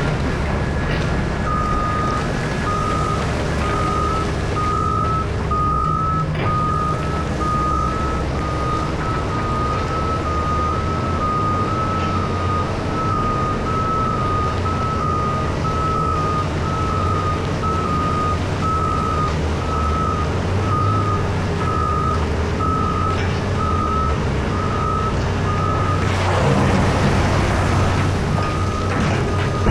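A reversing alarm on heavy mining equipment beeps about once a second over the steady drone of large diesel engines. Near the end a louder rush of noise rises briefly over the engines.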